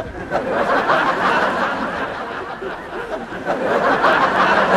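Studio audience laughing together, a long laugh that eases off a little in the middle and swells again about three and a half seconds in.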